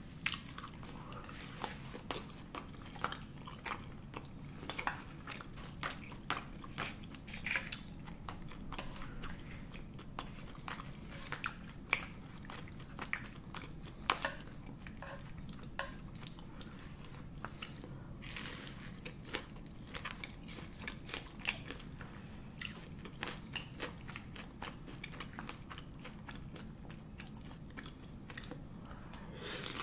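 Mouth sounds of eating tteokbokki (chewy spicy rice cakes): wet chewing and smacking, with scattered sharp clicks of a spoon and chopsticks against the pan and bowl.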